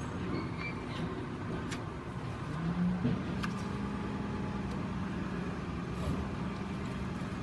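Steady hum of a motor vehicle engine running nearby, holding a low steady tone from about three seconds in. A few light clicks and rustles come through as the camera brushes against clothing.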